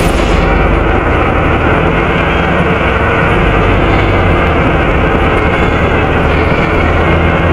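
Volvo B7RLE bus's diesel engine and radiator cooling fan running steadily, heard from inside the saloon: a low drone with a steady high tone held over it.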